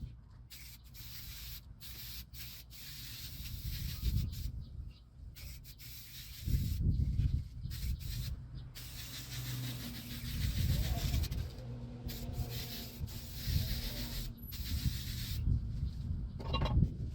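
Coil cleaner being sprayed onto air-conditioner coils: a hissing spray in long spurts broken by several short pauses, over a low rumble.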